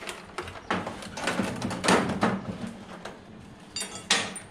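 A plastic tool-set case and a sheet-metal tool chest being handled: a run of knocks, clatters and scrapes, ending in a short metallic rattle and a sharp knock.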